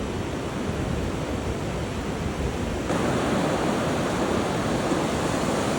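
Surf washing on a beach, a steady rushing noise, with wind rumbling on the microphone. The wash grows fuller about three seconds in.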